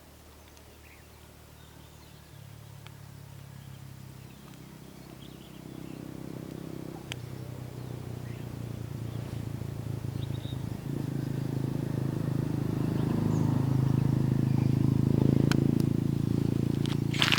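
A low, steady droning hum growing gradually louder over about fifteen seconds, then easing slightly, with a few sharp clicks near the end.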